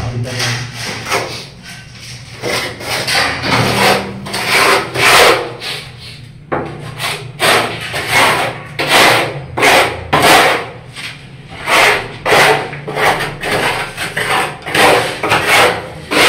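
Repeated rasping scrape strokes of a hand tool worked against cement and tile, about two strokes a second in the second half.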